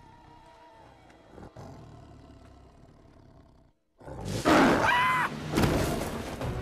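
Faint, quiet soundtrack, a moment of silence, then about four seconds in a sudden loud rush with a snarling roar from an animated sabre-toothed cat as it pounces, a second loud burst following a second or so later.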